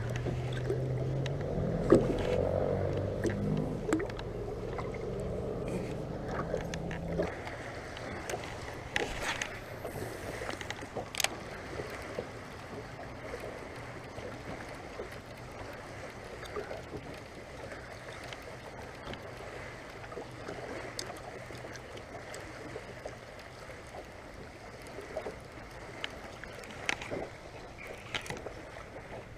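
A boat's motor hums steadily for about the first seven seconds and then stops, leaving a quieter background with scattered clicks and knocks.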